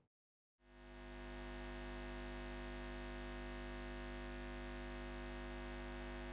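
A steady, many-toned electronic drone fades in about half a second in and then holds level: the sound bed of an end screen.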